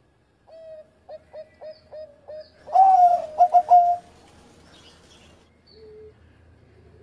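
Zebra dove (perkutut) cooing its song: a held opening note, then a run of short staccato coos about three a second, then louder coos ending in three quick notes. A fainter, lower coo follows near the end.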